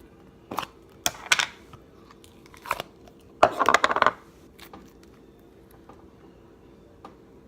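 Slime being squished and pulled by hand: a few short, crackly squishes, then a longer, louder one about three and a half seconds in.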